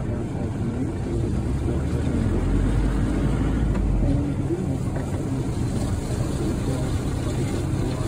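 A vehicle driving along a dirt farm track, heard from inside through an open window: a steady low engine and tyre rumble, heaviest about two to four seconds in.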